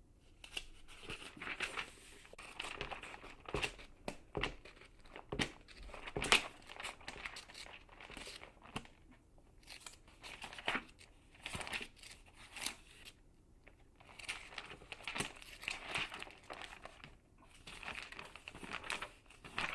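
Glossy magazine pages being turned one after another, each turn a short papery rustle and flick, with brief pauses between turns.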